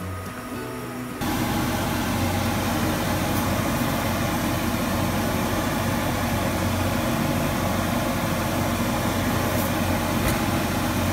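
Steady hum with a rushing, fan-like noise that starts abruptly about a second in, from a small motor running near the stovetop pot of boiling cushaw squash.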